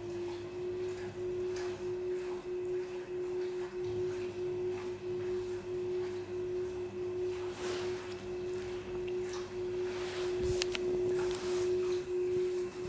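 Gorenje WNHEI washing machine giving a steady, unchanging high-pitched hum, with faint regular knocks underneath and a few sharper clicks about ten seconds in.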